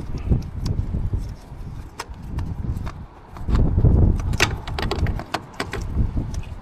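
Tools and parts being handled during motorcycle starter motor work: irregular sharp clicks and knocks over a gusty low rumble that swells about three and a half seconds in.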